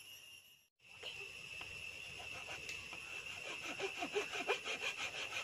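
Steady high-pitched insect chirring, cricket-like, that drops out briefly just under a second in and then carries on.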